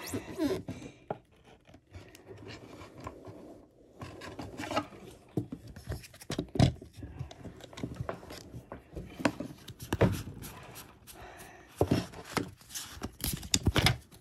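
Pokémon trading cards and their packaging being handled close to the microphone: irregular rustling and scraping, with sharp clicks and taps scattered through.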